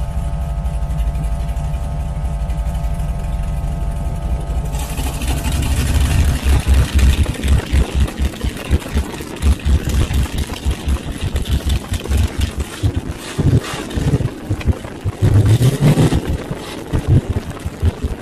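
1969 Camaro's 496 big-block Chevy V8 idling, heard under the car at the QTP Screamer muffler's electric cutout. At first it is a steady, muffled rumble. About five seconds in it turns much louder and choppier, as with the cutout valve open, and the revs rise briefly near the end.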